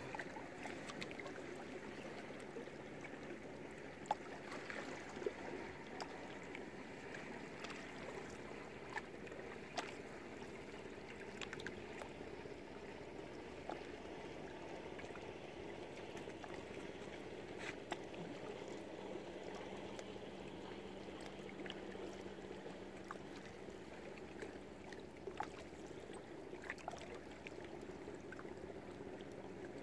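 Water lapping and gurgling gently around moored sailing boats, with scattered light clicks and knocks.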